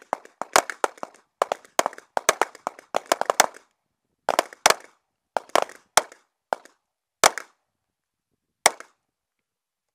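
Handgun gunfire on a range: fast strings of shots for the first few seconds, then slower single shots every half second to a second and a half, ending with one last shot near the end.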